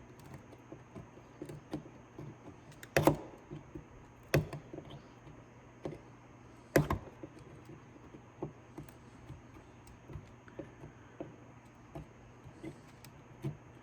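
Small metal clicks and taps of hand tools working on a car door lock cylinder as its parts are pried off. Three sharper clicks stand out, about 3, 4.5 and 7 seconds in.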